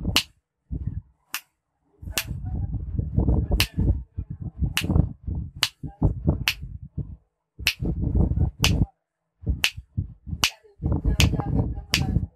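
Sharp finger snaps, about one a second, made beside a clap-switch circuit's microphone to toggle its bulb on and off. Bursts of rough low noise fill many of the gaps between the snaps.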